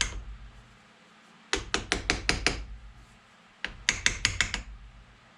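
Quick light hammer taps on a bench vise's jaws, in bursts of about seven rapid strikes: one burst trailing off at the start, then two more, about one and a half and three and a half seconds in.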